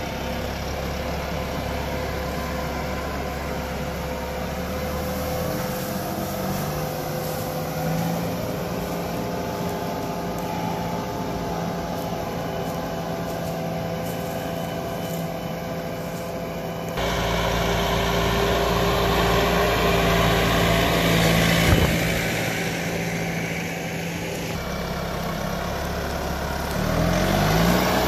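Landini Rex 4-080 GT tractor's diesel engine running steadily under load while ploughing. Its sound changes abruptly twice, and near the end the engine revs rise in pitch.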